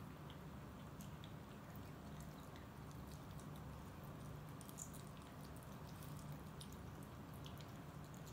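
Cats chewing chunks of raw beef: faint, irregular wet clicks and smacks over a low steady hum.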